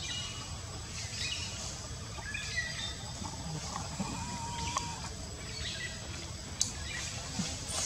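Outdoor ambience of scattered short, high chirping calls over a low steady rumble, with a sharp click near the end.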